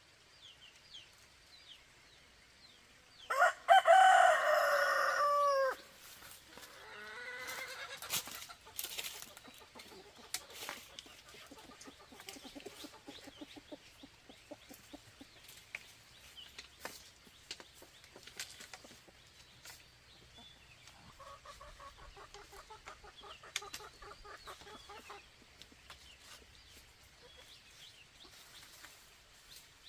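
A rooster crows once, loud, a few seconds in: one call of about two and a half seconds that drops in pitch at the end. Softer clucking and a few sharp knocks follow.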